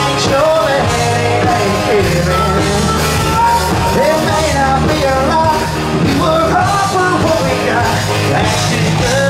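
Live southern rock band playing an instrumental break: electric guitars, bass and drums, with a harmonica playing held, bending notes over them.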